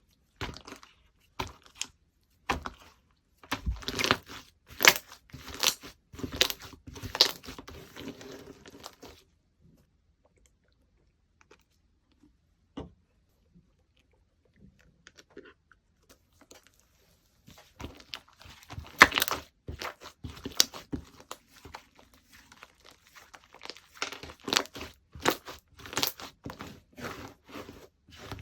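Slime being handled and pressed by hand, giving fast runs of sharp clicks and pops, with a stretch of near quiet in the middle.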